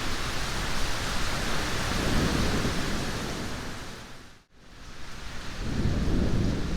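Steady heavy rain with a low rolling thunder rumble. About halfway through, everything fades out to a brief moment of near-silence, then the rain and a swelling thunder rumble fade back in.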